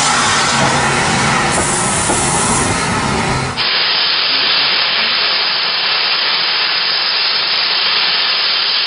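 Steam hissing steadily from standing steam locomotives. After a cut about a third of the way in, an even hiss from SECR C Class 0-6-0 No. 592 blowing off steam, with little low rumble under it.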